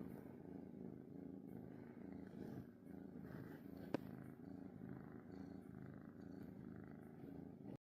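Domestic cat purring steadily and close, with a single soft click about four seconds in; the sound cuts off abruptly near the end.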